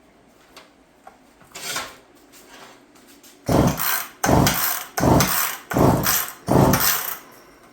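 McCulloch Pro Mac 55 chainsaw's recoil starter pulled five times in quick succession, the cord rasping out and the engine turning over without firing, after one softer scrape a little earlier. The spark plug is out and the engine is being cranked for a compression test, which reads about 130–135 psi.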